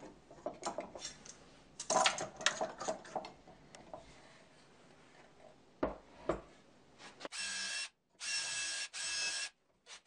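Wooden parts and bar clamps being handled and tightened, clicking and knocking in the first few seconds. Later a cordless drill runs in three short bursts at steady speed, drilling holes through the clamped plywood.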